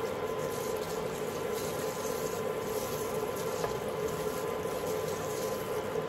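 Steady hum and hiss from a stainless steel pot of water heating on an electric cooker.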